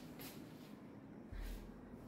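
Faint rustling and handling noise from a handheld phone being moved, with a dull low bump about two-thirds of the way through.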